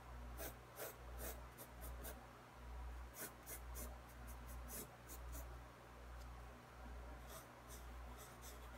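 Pencil sketching on sketchbook paper: runs of short strokes, one about a second in, one from about three to five seconds in and one near the end, with pauses between them.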